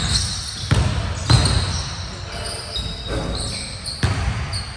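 Basketball dribbled on a hardwood gym floor: a few sharp bounces, about 0.7, 1.3 and 4 seconds in, with high sneaker squeaks between them.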